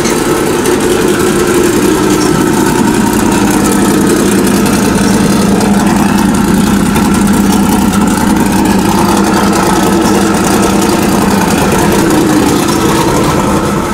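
Race-prepared C6 Corvette's engine idling loudly and steadily, just after being started.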